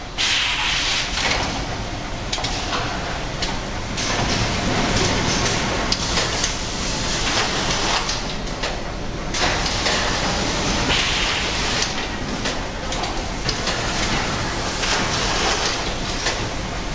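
Carton packing line machinery running, a steady mechanical noise from conveyors and packing mechanisms, with frequent clicks and knocks.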